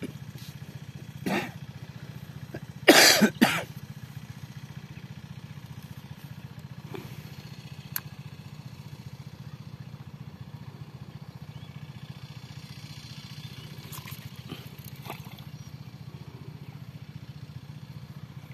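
A steady low engine hum throughout, with a brief loud noise about three seconds in and a shorter one just over a second in.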